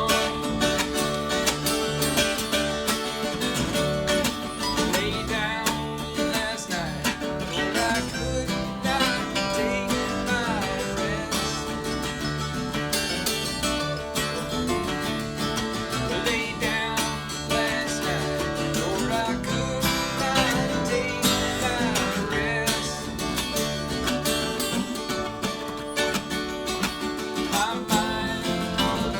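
Acoustic string band playing an instrumental passage, with plucked acoustic guitar to the fore and a few sliding notes.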